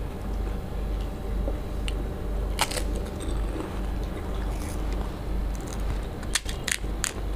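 Crisp, hollow panipuri shells being cracked open with the fingers and crunched while eating, heard as a few sharp crackles: one about two and a half seconds in and three close together near the end. A steady low hum runs underneath.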